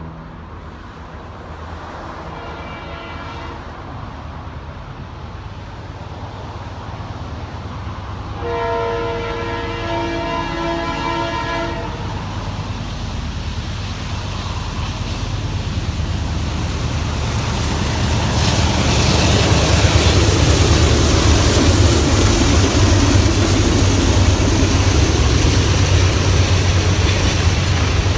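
Diesel locomotive rumbling as a train approaches, sounding its chime horn in a short blast about two and a half seconds in and a longer, louder blast around nine to twelve seconds in. The engines and rolling cars then grow loud as the train comes by.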